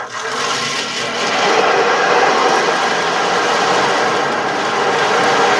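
Ocean drum: beads rolling across the drumhead inside the frame, making a steady surf-like hiss that swells over the first second and a half and then holds.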